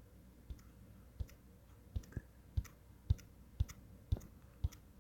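Computer mouse clicking, about nine sharp clicks at roughly two a second, unevenly spaced.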